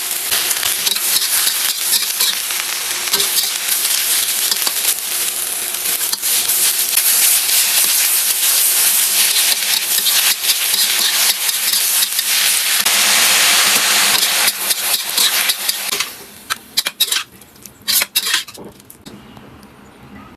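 Vegetables stir-frying in a hot pan, sizzling loudly as they are stirred. The sizzle dies away about three-quarters of the way through, followed by a few separate knocks.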